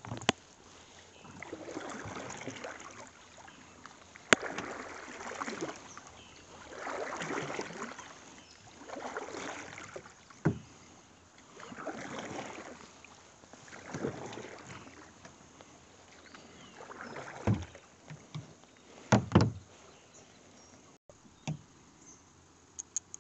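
Canoe paddle strokes swishing through the water in a steady rhythm, about one every two and a half seconds, with a few sharp knocks against the canoe.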